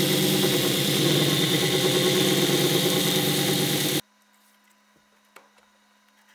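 Belt grinder running with a cast-metal knife blank pressed against its abrasive belt: a steady motor note under a hiss of grinding. About four seconds in it cuts off sharply to near silence, with only a faint hum and a few light clicks of a new belt being fitted.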